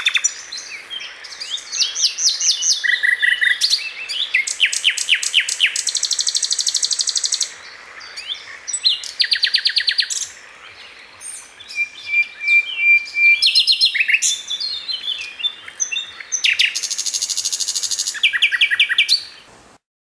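Common nightingale (Luscinia megarhynchos) singing: a varied run of phrases of rapid repeated notes, trills and whistles with short pauses between them, including one long pure whistle about two-thirds of the way through. The song stops shortly before the end.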